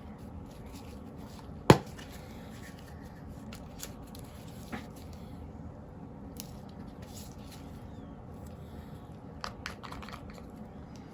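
Small handling noises while paint is worked with: one sharp knock or click about two seconds in, then scattered light clicks and taps, over a steady low hum.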